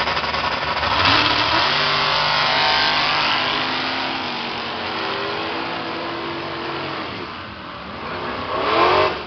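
Drag race cars at full throttle down the quarter-mile, their engine pitch climbing in steps through the gears and fading as they pull away. A short loud rising rev comes near the end.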